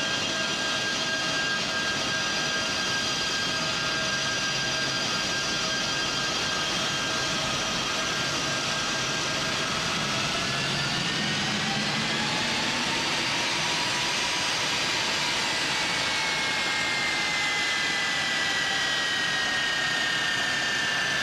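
C-17 Globemaster III's four turbofan engines running on the ground: a steady jet whine made of several high tones. The tones bend in pitch about halfway through, and one falls slowly near the end.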